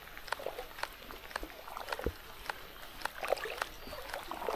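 Light rain: scattered raindrops landing in irregular sharp ticks over a faint hiss.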